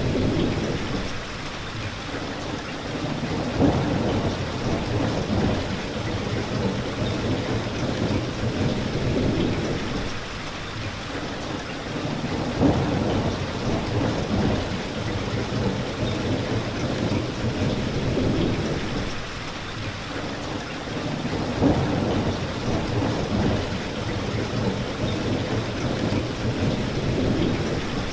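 Steady heavy rain with several low rolls of thunder rumbling in and fading away: a thunderstorm.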